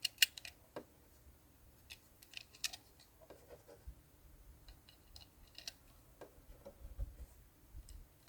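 Light, irregular clicks of cartridges being pressed one at a time into a rifle magazine.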